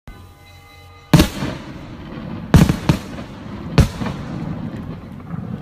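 Daytime firework shells bursting overhead: four loud bangs, one about a second in, two close together around the middle, and one near four seconds, each followed by a long rolling echo. A faint steady tone sounds in the first second before the first bang.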